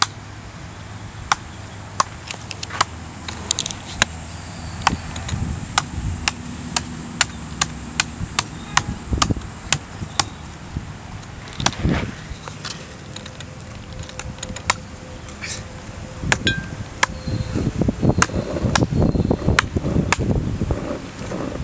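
A knife chopping into the husk of a green coconut: repeated sharp chops, about one or two a second, coming closer together near the end.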